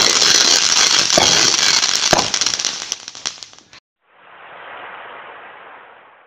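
Fireworks crackling densely, with two sharper bangs about one and two seconds in, cutting off suddenly before four seconds. A softer rush of noise then swells and fades away.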